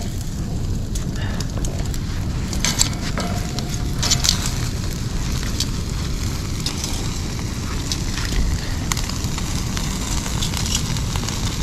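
Wood fire in a pit crackling and popping under a grill grate of turkey wings and bacon-wrapped potatoes: scattered sharp pops over a steady low rumble.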